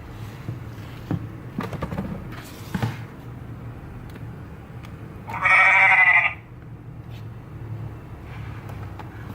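One sheep bleat about a second long, played as a recorded farm-animal sound effect, coming about five seconds in. It is preceded by a few light clicks and knocks from about one to three seconds in.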